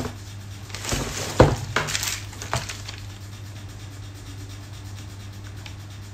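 Cardboard box and plastic-wrapped parts being handled: rustling with several sharp knocks and clinks, the loudest about one and a half seconds in, dying away after about three seconds. A steady low hum runs underneath.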